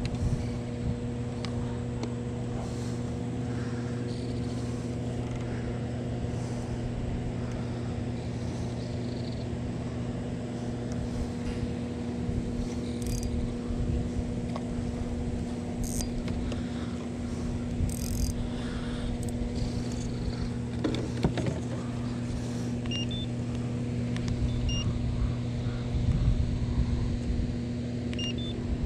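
Steady low electrical hum over a low rumble, unchanging throughout. A few faint short beeps sound near the end.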